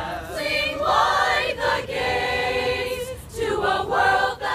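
A choir singing a song in chorus: several held, wavering notes with short breaths between phrases.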